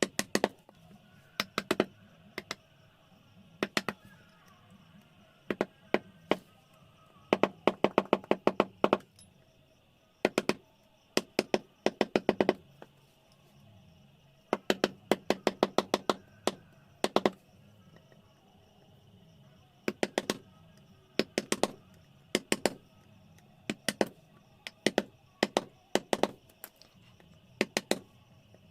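A mallet striking a wood-carving chisel: runs of quick, sharp taps, several in a row with short pauses between.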